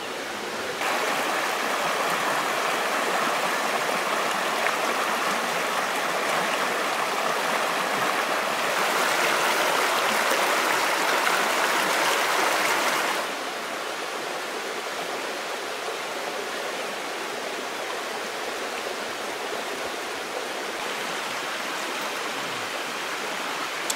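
Forest river rushing steadily over rocks. It gets louder about nine seconds in and drops back suddenly about thirteen seconds in.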